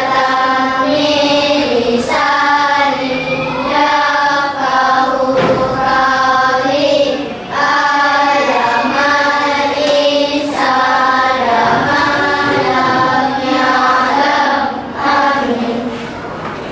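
A class of schoolchildren chanting together in unison, a sung, melodic recitation in held phrases with short breaks between them; it dies away near the end.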